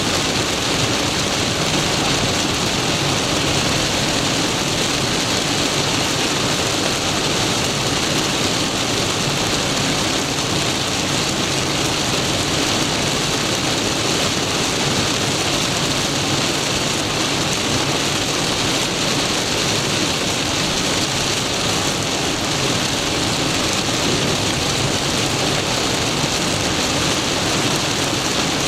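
Torrential rain drumming on a moving car, heard from inside the cabin as a steady, dense hiss, mixed with the spray of tyres on a flooded road.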